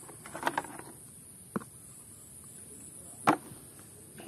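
Muddy plastic toy vehicles knocking against each other and the plastic basin as they are handled: a few light clacks and one sharper knock about three seconds in.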